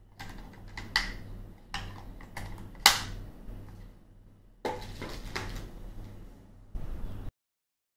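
Hard plastic and cardboard packaging being handled: the robot vacuum's 2-in-1 dust box and water tank is turned in the hands and set down. The sound is a string of clicks and knocks, the sharpest about three seconds in, over a low steady hum. It cuts off abruptly about seven seconds in.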